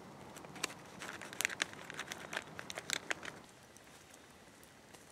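Crinkly plastic food packaging being handled, giving irregular sharp crackles that stop about three seconds in.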